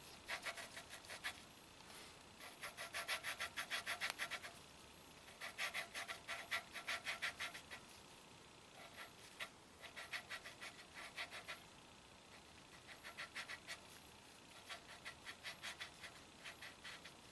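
Exhaust valve being hand-lapped into its seat in an aluminium Subaru cylinder head: the lapping stick is twirled quickly back and forth, and the valve face grinds against the seat through the abrasive paste. It comes as a fast gritty scraping in spurts of one to two seconds with short pauses between them.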